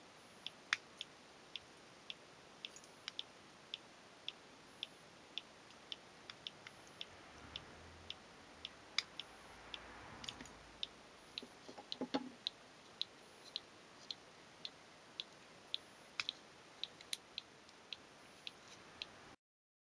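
Motorcycle disc lock making an abnormal noise: sharp, regular ticking about two times a second, with a brief rustle and knock about halfway through.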